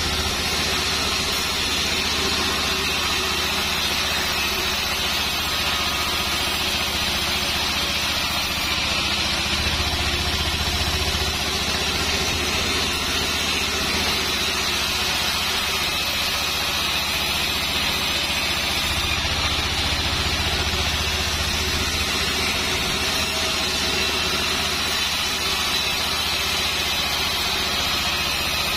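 Band sawmill running steadily, its blade ripping lengthwise through a sengon log to saw it into small battens; a constant machine hum with the hiss of the cut, the low hum swelling slightly twice.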